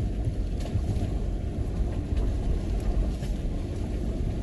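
Steady low rumble of a 4x4 truck's engine and drivetrain heard from inside the cab as it crawls over a rough, washed-out dirt trail, with a few faint knocks from the bumps.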